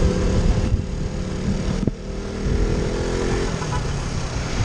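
Sport motorcycle engine running at a fairly steady pace while riding, over a dense low wind-and-road rumble, with one sharp click about two seconds in.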